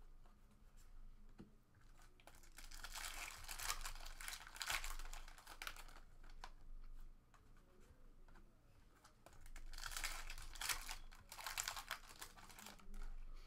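Foil trading-card pack wrappers crinkling and tearing open by hand, with cards handled in between. There are two longer stretches of crinkling, about three seconds in and about ten seconds in, and scattered light clicks between them.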